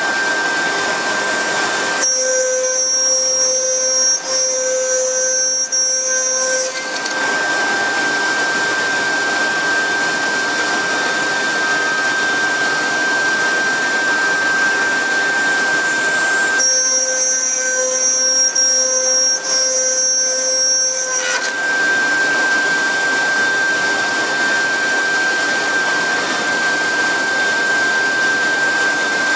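CNC router running, with a steady high spindle whine over a loud rushing noise. Twice, for about five seconds each, the rushing drops away and a higher whine takes over.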